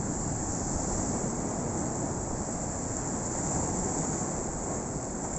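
Steady rushing outdoor noise of wind and sea on a rocky shoreline, with no distinct events.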